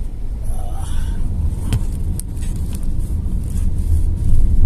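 Cabin noise of a van on the move: a steady low rumble of engine and tyres on the road, with a couple of light clicks.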